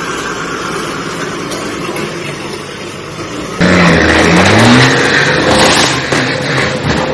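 Truck engine noise: a steady engine running at first, then, after a sudden jump in loudness about three and a half seconds in, a semi-truck engine revving with rising pitch, staying loud to the end.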